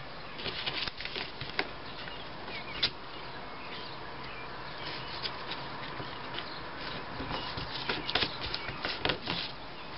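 Thick, glue-stiffened paper being folded and creased by hand: scattered rustles and crackles, busier near the end.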